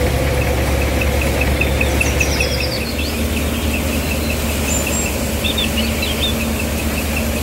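Tractor diesel engine running steadily at a knocking idle while driving a small grain machine through its rear shaft, with a light regular ticking, about three or four a second, over it.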